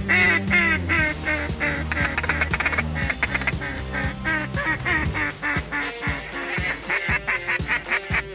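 Duck call blown in a rapid run of short quacks, several a second, over background music.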